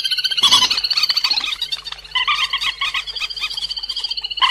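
Recorded calls of the cuốc biển, the bird used as a trapping lure: a dense, rapid chatter of short repeated high notes, with a stronger lower note about half a second in and another near the end.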